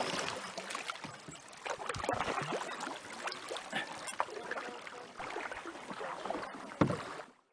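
Canoe being paddled: uneven splashing and dripping water from paddle strokes, with a sharp knock just before seven seconds in. The sound cuts off abruptly near the end.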